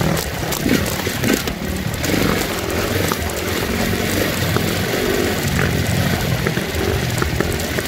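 Dirt bike engine running while riding a rocky, sandy trail, with a few short clicks and knocks from the bike over rocks.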